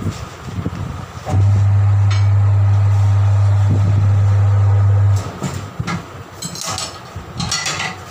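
Tyre changer's electric turntable motor running with a loud steady hum for about four seconds while a truck tyre is fitted onto its rim, then short metallic clanks and scrapes from the tyre lever and bead near the end.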